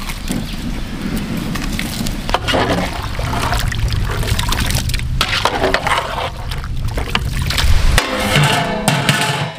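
Water poured into a large aluminium cooking pot of taro roots, sloshing and splashing, with a few knocks against the pot.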